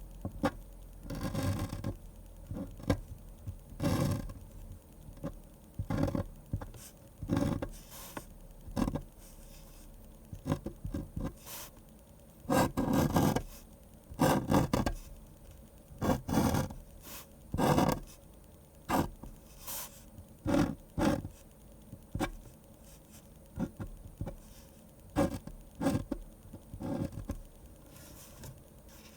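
A pen scratching across paper while drawing manga: irregular short strokes, mostly under a second each, with brief pauses between them and a few longer strokes about halfway through.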